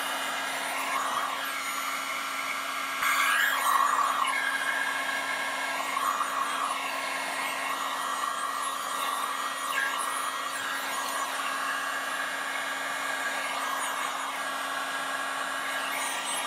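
Electric heat gun blowing hot air steadily, set to full heat to shrink window tint film onto a curved rear window. Its motor gives a constant hum under the airflow hiss, with a few brief louder swishes, the strongest about three seconds in.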